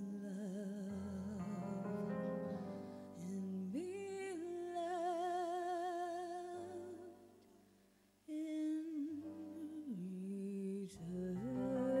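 A woman sings a slow ballad with long, held notes and vibrato over a soft keyboard accompaniment. About eight seconds in, the sound fades almost to nothing before the voice comes back.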